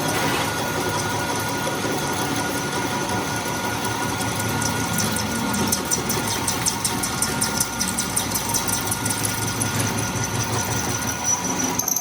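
A motor-driven machine or power tool running steadily, starting and stopping abruptly, with a fast fine clatter in the middle of the run.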